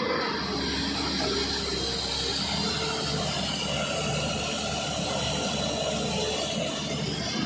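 Hyundai 215 crawler excavator's diesel engine and hydraulics running steadily at working revs while it digs.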